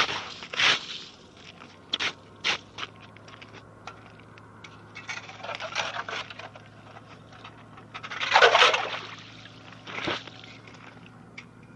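Crunching and scraping on snow and ice: a few sharp crunches in the first seconds, then two longer scrapes, the louder one about eight seconds in.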